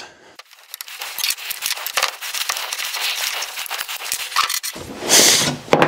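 A wrench loosening the bar nuts on a Stihl MS180 chainsaw: a long run of small metallic clicks and scraping, then a louder rustling scrape near the end.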